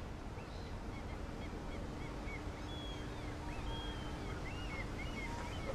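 Outdoor dockside ambience: a steady low background rumble with many short bird chirps throughout, and a faint steady hum that stops near the end.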